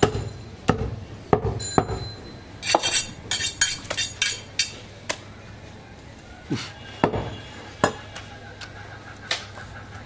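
Heavy butcher's knife chopping through goat meat and rib bone onto a wooden chopping block: about a dozen sharp, irregular blows, with a quick run of lighter clicky strikes a few seconds in.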